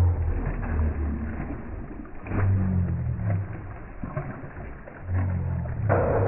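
A hooked sea bass thrashing and splashing at the water's surface. A low, uneven rumble swells up twice, and a sharp burst comes near the end.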